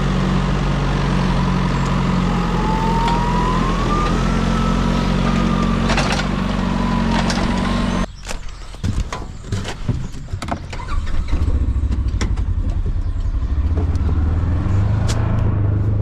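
A farm loader's engine running steadily, with a whine that rises in pitch for a few seconds. About halfway the sound cuts abruptly to a lower engine running, with a few sharp knocks.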